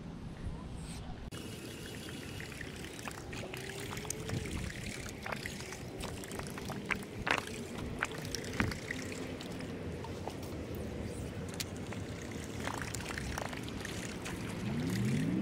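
Pond water splashing and trickling steadily, with scattered small clicks throughout and a rising tone near the end.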